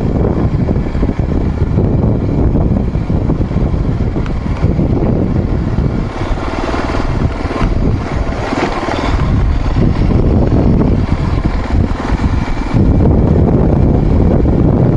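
Motor vehicle engine running steadily while driving a dirt trail, with the rumble of the ride. It gets louder a little past two-thirds of the way through.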